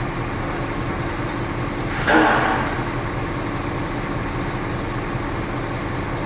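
Construction-site machinery running with a steady mechanical drone, broken about two seconds in by one sudden loud burst that dies away over half a second.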